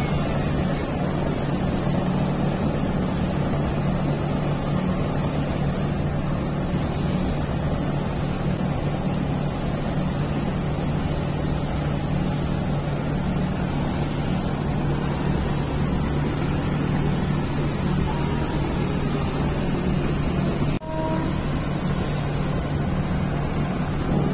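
Steady low drone of a boat's engine heard from on board, mixed with the rush of water, with a brief drop in level about 21 seconds in.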